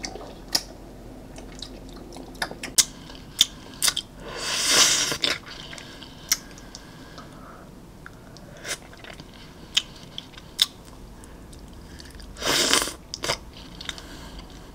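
Close-miked eating of a chocolate-coated coconut ice-cream bar: wet mouth clicks, bites into the crunchy chocolate shell and chewing. Two longer, louder mouth sounds come about four and a half seconds in and again near the end.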